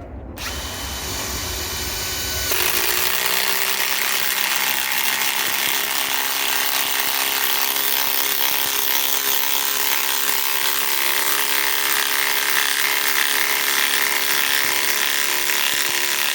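Ryobi PSBIW25 compact impact wrench driving a 5/16 by 3 inch galvanized lag screw into wood. The motor spins up first. About two and a half seconds in it gets louder as the hammering impact mechanism engages under load, and it keeps hammering steadily.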